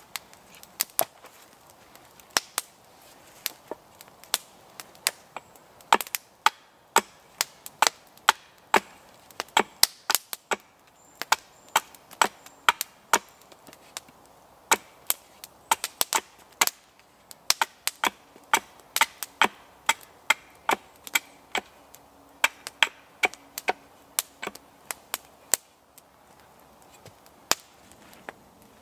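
A hatchet chopping a wooden pole on a chopping stump: a long, uneven run of sharp wooden knocks, roughly one or two a second, some much louder than others.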